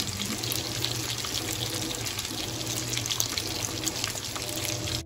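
Strips of raw bacon frying in a nonstick skillet: a steady sizzle of bubbling fat with many small crackles and pops.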